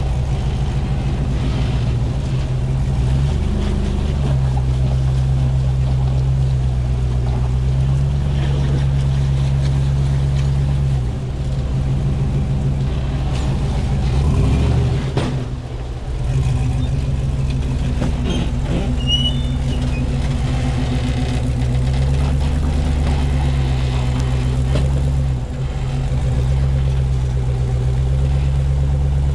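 Off-road 4x4's engine running at low revs, its pitch stepping up and down every few seconds as the throttle is eased on and off.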